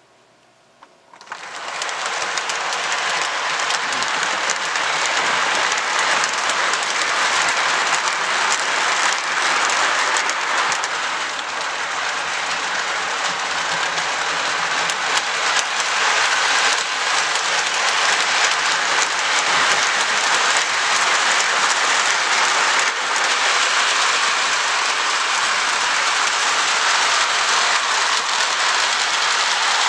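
Model steam locomotives double-heading a passenger train around a layout: a steady hissing run of wheels on track with fine clicking, cutting in suddenly about a second in.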